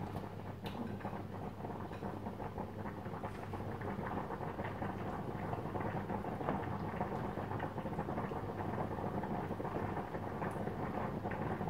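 Pans boiling and bubbling on a hob, a pot of pasta water and a tomato sauce: a steady crackling patter over a low steady hum, with a spatula stirring vegetables into the sauce.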